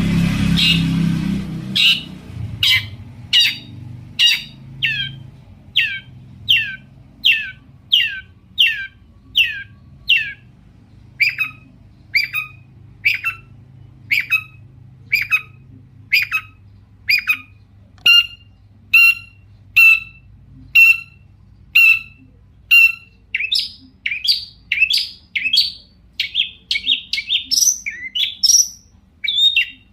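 Long-tailed shrike (cendet) calling in a long series of sharp, downward-sweeping notes, about one or two a second, turning faster and more varied near the end. A low rumble is heard in the first two seconds.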